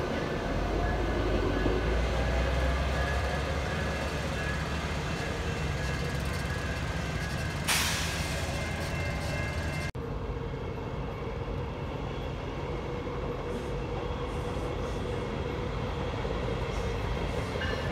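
Electric commuter train (Silverliner V multiple-unit) pulling out of a station, its traction motors humming and wheels rumbling, with a short loud hiss about eight seconds in. After a cut, another train of the same kind runs along a yard track, a steadier rumble with a held whine.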